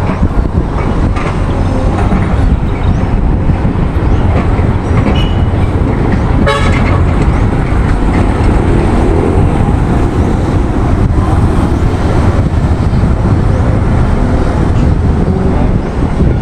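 Loud steady rumble of a vehicle engine, with a short horn toot about six and a half seconds in.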